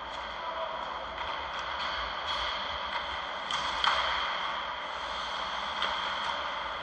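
Ice rink ambience: a steady hiss and low hum with a few faint, distant clacks of hockey sticks and puck, the sharpest a little before four seconds in.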